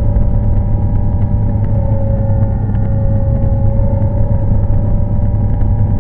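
A loud, steady low rumble with a few held tones above it, one of which dips away briefly and comes back.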